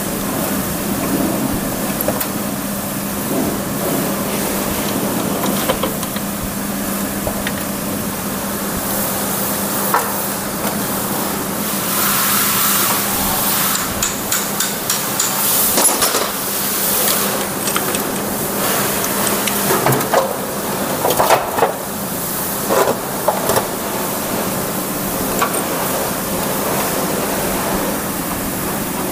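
Metal motorcycle-engine parts knocking and clinking against each other and the bench as the crankcase internals are worked loose, in scattered clusters. A steady low hum lies underneath.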